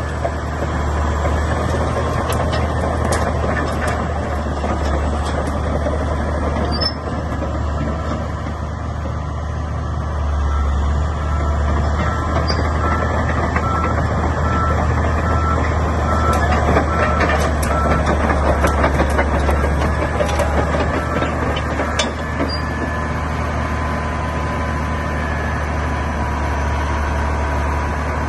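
CAT D8R bulldozer's diesel engine running steadily, with its reverse alarm beeping at an even pace for several seconds midway through. Occasional sharp metallic clanks sound over the engine.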